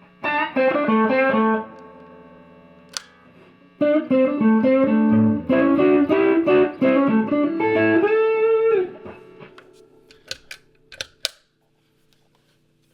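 Electric guitar played through an overdrive pedal with a boost engaged, into a Victoria Chicago-lux amp. Two short phrases of quick notes; the second ends on a bent note that rings out and fades. A few light clicks come near the end.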